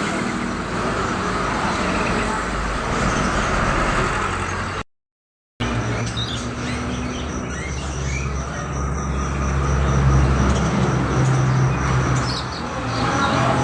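Steady motor-vehicle engine and road noise, with caged songbirds chirping over it, the chirps clearest in the second half. The sound cuts out completely for under a second a little before the middle.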